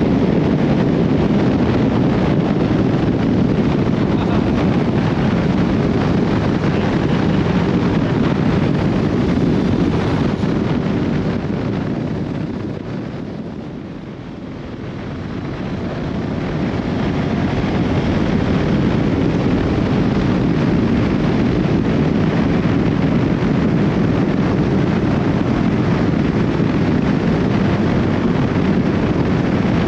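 Wind rushing over the microphone and motorcycle noise while riding a Honda CB1300SB. The rush dies down about halfway through and builds back up again a few seconds later.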